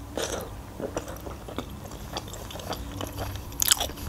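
Close-miked chewing of a mouthful of manti dumpling: soft, irregular wet mouth clicks, with a louder cluster of them near the end.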